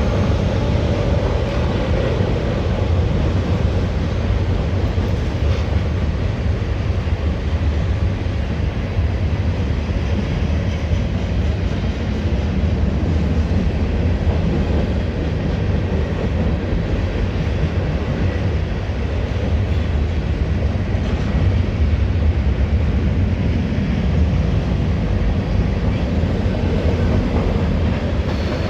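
Norfolk Southern freight train cars rolling past, with a steady sound of wheels on the rails.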